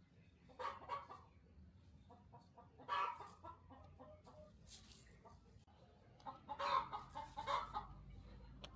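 Chickens clucking in three short bouts: about a second in, around three seconds in, and a longer run of clucks near the end.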